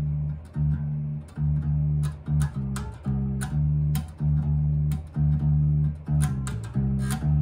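Passive electric bass guitar plugged straight into a Xiaomi Mi Portable Bluetooth Speaker's aux input with no effects, the speaker working as a small bass amp. It plays a riff of separate plucked low notes, about one and a half a second, each with a click of the string. It sounds a little quieter than an active bass would, since the passive bass has no built-in power.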